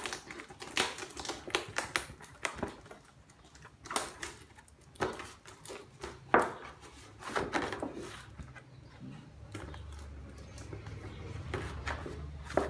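A thin black plastic nursery pot being handled, its packing-tape-wrapped rim crackling and the plastic clicking and tapping irregularly. A low hum comes in about two-thirds of the way through.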